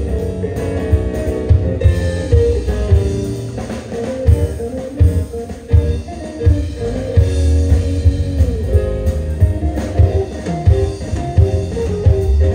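Live band music: electric guitar playing over a drum kit and a strong bass line.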